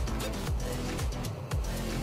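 Background music with a steady drum beat and bass line.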